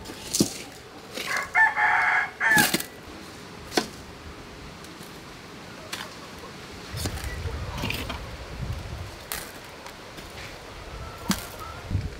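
A rooster crowing once, about a second in, a single call lasting about a second and a half. A few sharp clinks are heard around it and later on.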